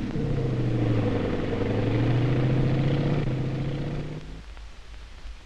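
M4 Sherman tank's engine running as the tank drives along, a steady drone that rises and falls slightly in pitch. It fades out about four seconds in, leaving a faint low hum.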